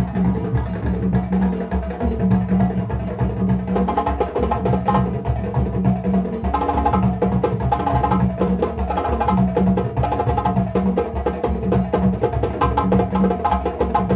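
Live percussion music: a shoulder-slung wooden percussion instrument struck by hand, giving woody, pitched strokes in a steady, continuous rhythm.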